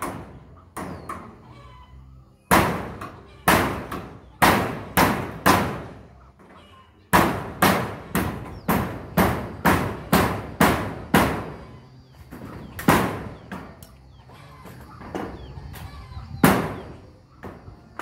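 Hammer driving nails through corrugated metal roof sheets: sharp metallic blows that ring briefly on the sheet. They come in quick runs of several strikes, a pause between each nail.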